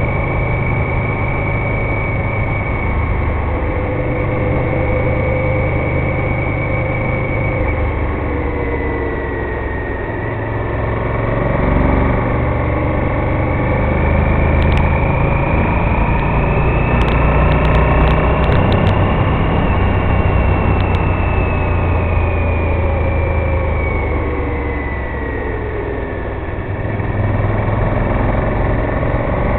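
Honda VTR1000F Firestorm's 90-degree V-twin running under way on the road. Its pitch sags about eight seconds in, climbs to its highest a little past halfway, falls off again, and picks up near the end.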